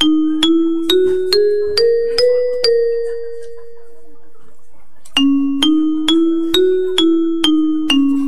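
Railway station chime over the public-address system playing a tune of bell-like struck notes, about two a second: seven notes climbing step by step to a held note, then after a short pause a second run of notes moving around a lower pitch.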